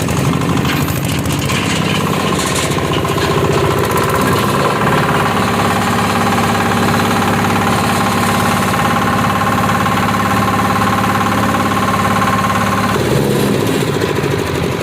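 Areca nut husking machine running under power with a steady engine-like drone, rattle and a whine; about 13 seconds in the whine stops and the machine's sound changes.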